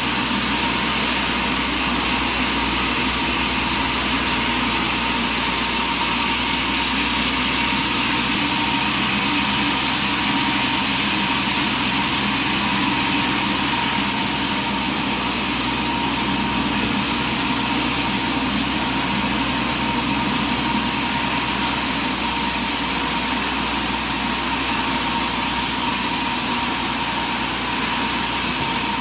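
Sawmill running steadily: an engine drone with a constant high whine and no let-up.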